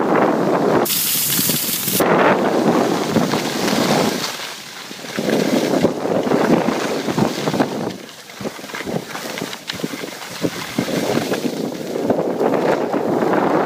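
Wind buffeting the microphone while skiing downhill, rising and falling, mixed with the hiss of skis sliding over packed snow. A sharper hiss of skis scraping starts about a second in and stops sharply a second later.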